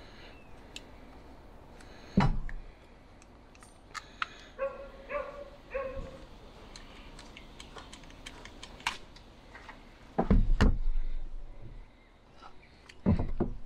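A dog barks three times in quick succession about a third of the way in. Scattered sharp clicks and knocks come from handling a rubber gas hose and knife, with heavy thumps a couple of seconds in, a double thump about three-quarters through, and another near the end.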